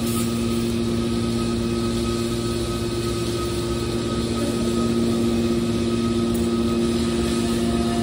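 Hydraulic power unit of a TCM scrap metal baler running steadily with the press at rest: an even mechanical hum with a couple of steady tones.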